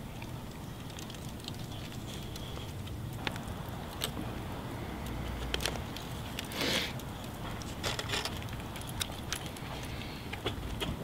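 Aluminium foil crinkling and crackling in short spurts as a wrapped sandwich is unwrapped and handled, over a steady low rumble.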